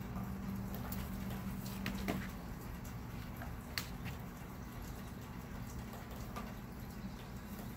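Steady low outdoor rumble under a darkening storm sky, with a few scattered sharp ticks, the sharpest about two seconds in and again near four seconds.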